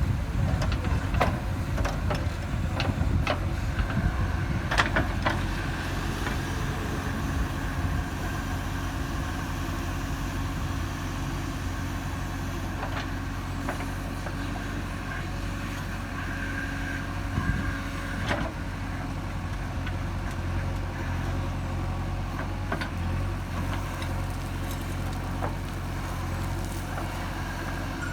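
JCB 3DX backhoe loader's diesel engine running steadily under work, with a string of sharp knocks in the first few seconds and another about eighteen seconds in.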